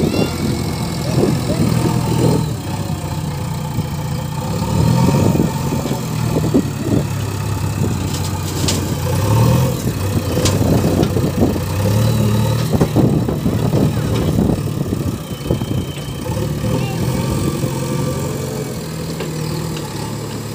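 JCB 3DX backhoe loader's diesel engine running, its revs rising and falling several times as the loader arm lifts and tips the bucket. Near the middle comes a brief spill of dung and earth dropping from the bucket into a metal trailer.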